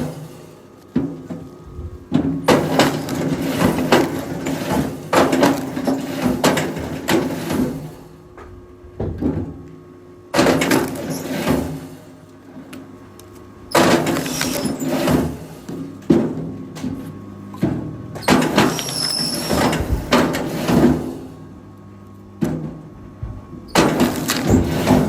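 Wood knocking and cracking, heavy logs handled or broken in several loud spells with quieter gaps between, over the steady hum of a running machine engine.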